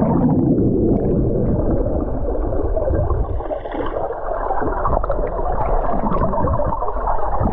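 Muffled underwater sound of a swimming pool, heard through an action camera held below the surface: churning water and bubbling, with the higher sounds cut off.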